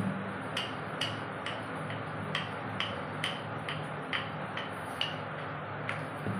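Wooden rolling pin rolling dough back and forth on a wooden board, giving a light tick about twice a second, with a steady low hum underneath.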